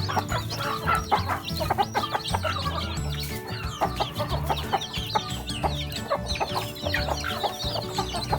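Newly hatched chicks peeping constantly in many short, high chirps, with a hen clucking among them, over background music with a repeating low beat.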